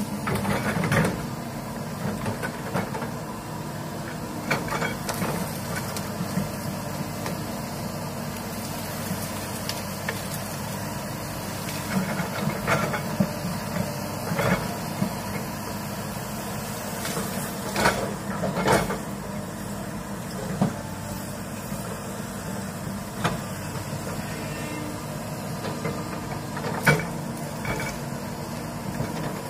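Komatsu crawler excavator's diesel engine running steadily under load as the bucket works through brush and small trees, with several sharp cracks of branches breaking, two close together past the middle and another near the end.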